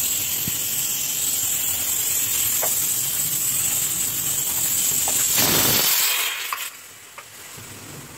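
Steam hissing from an aluminium pressure cooker's vent, spitting dal froth out onto the lid. The hiss swells a little about five seconds in, then cuts off sharply about a second and a half later.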